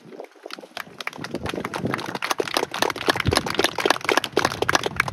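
Audience applauding: scattered claps from about half a second in swell into a full, dense round of clapping.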